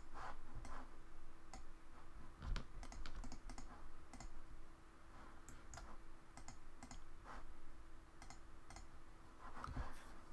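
Scattered, irregularly spaced clicks of a computer mouse and keyboard as curves are selected, over a faint steady hum.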